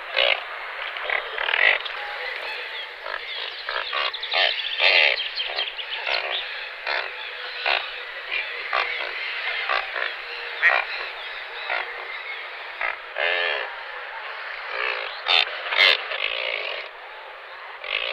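A chorus of frogs calling, many short croaks overlapping over a steady background din.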